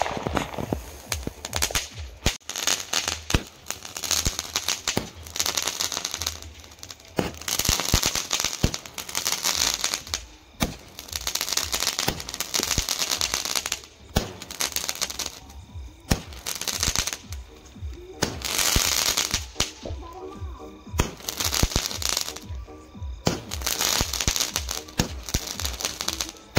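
Fireworks going off in quick succession: a string of sky-shot rockets, each launch a hiss lasting a second or two with sharp crackles and pops, one about every two to three seconds.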